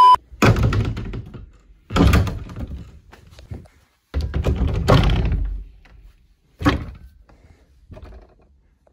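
A test-pattern beep cuts off at the start. Then come about five dull thunks and knocks, the longest about four seconds in, from closet doors and shelves being handled while the camera moves.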